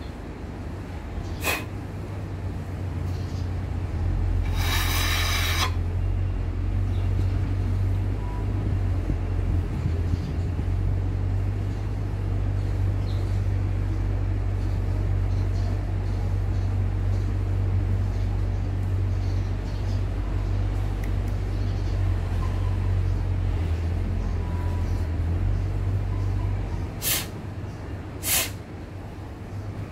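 A steady low rumble, with a hiss of about a second near five seconds in as the lawnmower's removed carburettor is cleaned, and a few sharp clicks, two of them near the end.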